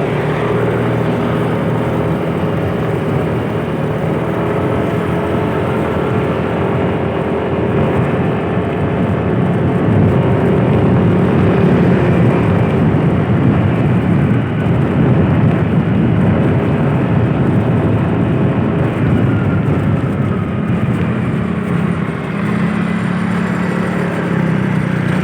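Motor vehicle engine and road noise while driving, running steadily with its pitch drifting up and down as the speed changes.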